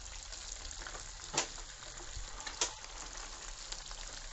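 Flour-coated chicken pieces par-frying in hot sunflower oil in a non-stick pan: a steady sizzle, with two sharp clicks about a second and a half and three seconds in.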